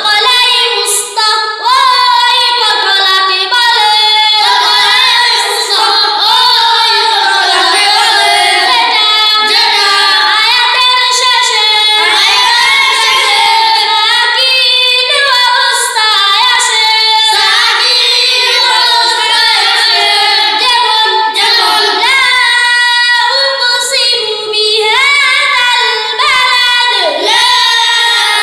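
A child's high voice chanting in a melodic, sung recitation style, running on almost without pause, with the pitch gliding up and down.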